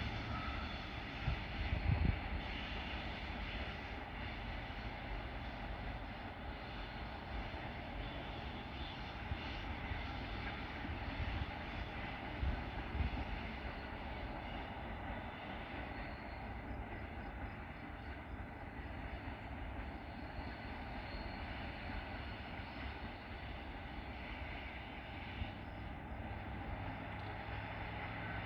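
Passenger train running along the line with a steady rumble of wheels and cars, and a few short louder knocks about two seconds in and again around thirteen seconds.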